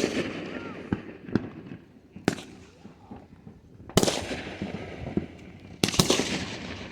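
Fireworks exploding close by: a series of sharp bangs, the loudest about two, four and six seconds in, each trailing off into crackle and echo.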